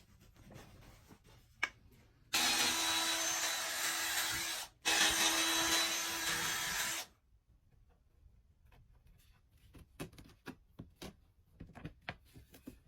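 A small power tool's motor runs in two bursts of about two seconds each with a short break between, a steady hum under a loud whir. Light handling clicks come before and after.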